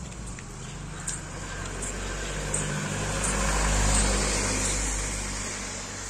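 A motor vehicle passing on a wet road: its engine hum and tyre noise swell to a peak about four seconds in, then fade.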